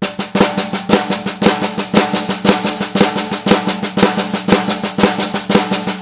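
Snare drum played with sticks: the Swiss Army triplet rudiment, an even run of triplet strokes with a flam accent about twice a second. The flams are played wide and clear rather than flat. A final stroke near the end rings out.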